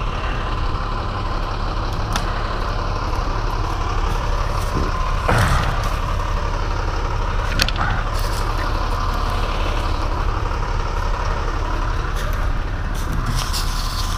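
An engine running steadily at idle, with a few sharp knocks or clicks over it, the strongest about five seconds in.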